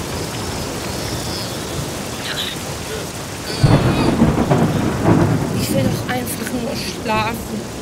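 Heavy rain falling steadily, with a deep rumble of thunder that comes in about halfway through and slowly dies away.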